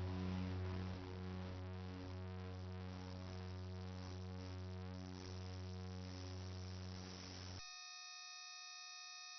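Quiet ambient electronic drone music, a sustained chord of held tones slowly fading. About seven and a half seconds in, it switches suddenly to a steady chord of pure electronic tones.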